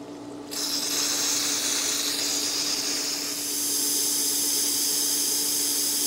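Air hissing steadily out of an opened air bleed valve on the pool plumbing as trapped air is purged after the system restart, over a steady low hum. The hiss starts about half a second in and grows a little louder partway through.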